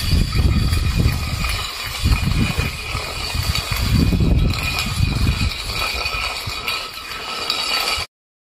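Stainless steel food bowl scraping and rattling across a concrete floor as a puppy shoves it along with its head while eating, in uneven surges. The sound cuts off suddenly near the end.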